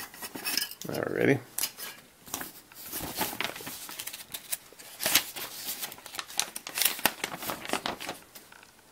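Paper instruction sheet crackling and rustling as it is unfolded and handled, with sharp irregular clicks of plastic parts trees being moved.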